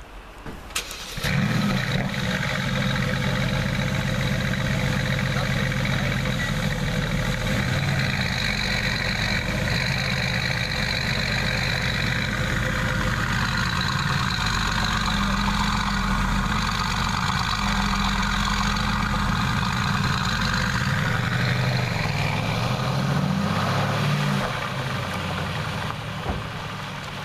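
Mercedes-AMG GT's twin-turbo V8 cranked and started about a second in, then running at a loud, steady idle. Near the end the pitch wavers and the sound drops away as the car drives off.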